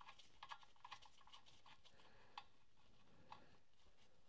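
Faint small metallic clicks of a nut being spun off a propshaft flex-disc bolt by gloved fingers: a run of light ticks over the first two seconds, then a couple of single ticks, otherwise near silence.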